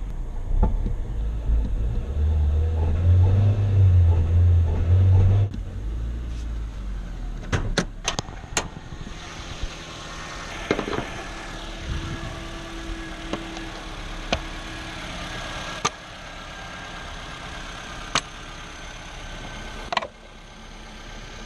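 2006 Nissan Sentra's 1.8 L four-cylinder engine running. A loud low rumble drops off abruptly about five seconds in, and the engine then runs more quietly, with several sharp clicks or knocks scattered through. The car was brought in for long cranking, rough idle and no power.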